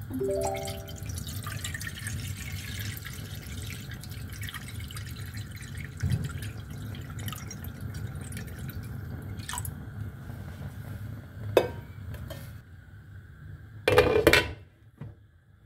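A short chime opens, then water is poured in a steady splashing stream into a pan for about twelve seconds. Near the end a glass pot lid is set down on the pan with a loud clatter.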